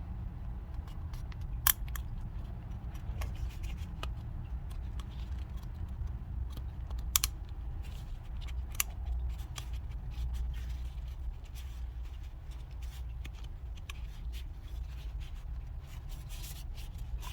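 Scattered small clicks and scraping of hands working an oiled rubber O-ring into the groove of an oil filter housing cap, over a steady low rumble.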